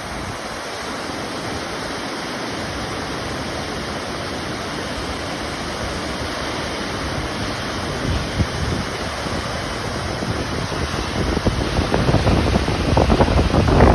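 A waterfall's steady rush of falling water. Wind buffets the microphone in gusts that grow stronger near the end.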